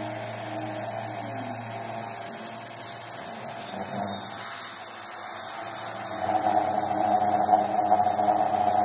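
Sieg X2 mini milling machine running, its end mill cutting a black plastic plate: a steady motor hum with a whine over it. About six seconds in the cutting gets louder and rougher.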